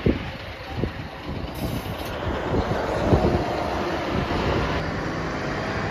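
Full-size coach bus engine running as the bus pulls away and turns slowly past, loudest about three seconds in as it passes closest. Two short low thumps come near the start.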